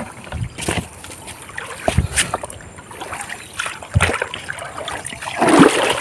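Water splashing and sloshing as a person wades in a shallow stream and works a hand fishing net, with a few scattered knocks and a louder splash near the end.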